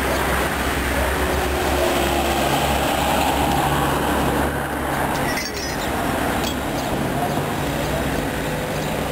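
Street noise: a steady low rumble of traffic with a faint hum.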